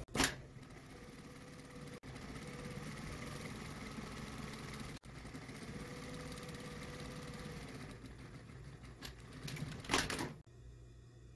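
Industrial single-needle lockstitch sewing machine running steadily as it stitches knit fabric. There is a sharp click at the very start. Near the end there are several clicks and a louder knock, and then the machine stops.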